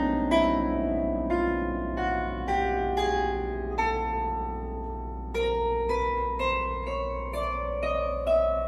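Newly installed piano strings on an 1874 Broadwood grand being plucked by hand again and again while the tuning pin is turned, each pluck ringing a little higher as the string is pulled up toward pitch. A sharper, higher pluck comes about five seconds in.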